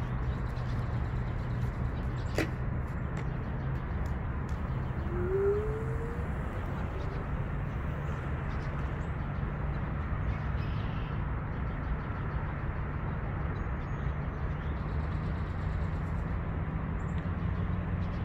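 Steady low outdoor rumble, as of distant city traffic. A single sharp click comes about two seconds in, and a bird gives one short rising call about five seconds in.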